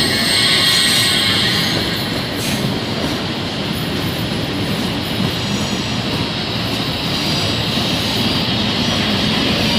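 CPTM Série 2070 electric train running, a steady noise of wheels on rail and traction motors.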